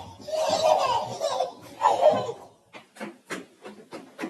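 A person laughing in breathy bursts for about two seconds, then a run of short, irregular clicks or taps.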